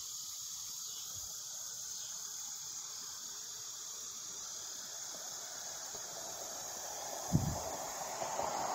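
A steady high-pitched insect chorus chirring without a break, with a single short low thump about seven seconds in.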